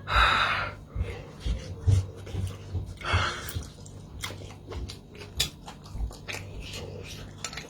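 Close-up chewing and mouth sounds: many short wet clicks and smacks, with two louder noisy bursts, one at the start and one about three seconds in, over a steady low hum.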